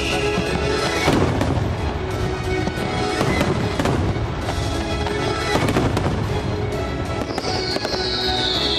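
Fireworks display, with shells bursting in sharp bangs and crackles: a strong burst about a second in and several more after it. Near the end a high whistling tone glides down in pitch.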